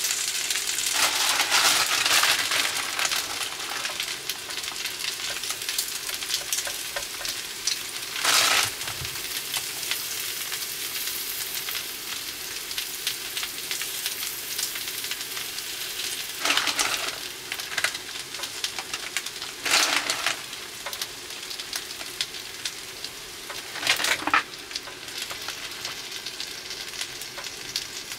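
Noodles, meat and batter sizzling steadily on an electric hot plate, with a few brief louder bursts of sizzle and rustle as ingredients are added and moved about.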